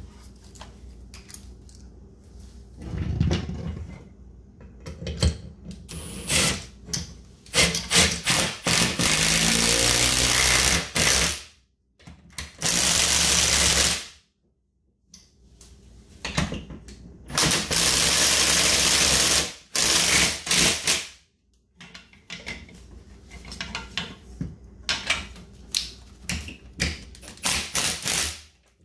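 Milwaukee M18 cordless impact tool driving lag bolts through a TV wall mount into pre-drilled holes in a wall stud. It runs in three long bursts of a few seconds each, with short bursts before them and a quick string of short bursts near the end.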